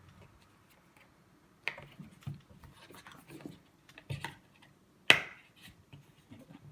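Hands handling a phone's charging cable and its packaging: scattered light taps and rustles, with one sharp click about five seconds in.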